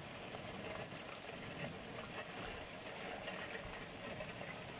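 Steady rain falling on roofs: an even hiss with fine patter.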